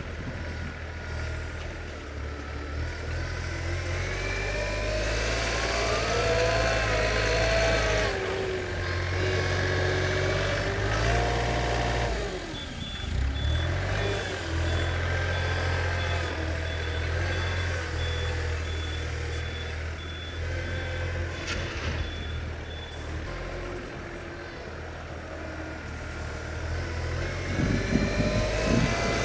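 Hitachi ZW40 compact wheel loader's diesel engine running and revving as it pushes and lifts snow, with a whine that rises and falls with the revs. In the middle, for about ten seconds, its reversing alarm beeps steadily.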